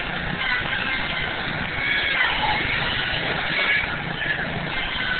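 Mini-backhoe's engine running steadily, its pitch gliding up and down in places.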